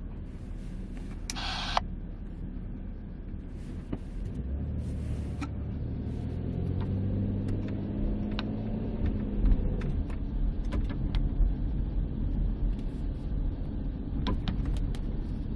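Driving noise picked up by a Steelman wireless ChassisEar microphone on the driver's-side front strut and played through the receiver in the minivan: low road rumble with scattered light clicks and a short hiss about a second and a half in. A humming tone rises and then falls in pitch from about five seconds in to about ten. The channel is pretty quiet, with no clear knock from that strut.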